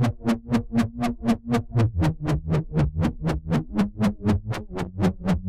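Electronic music demonstrating a rich synth bass preset made in the Serum software synthesizer: a low bass line moving between notes under a sharp percussive tick about four times a second.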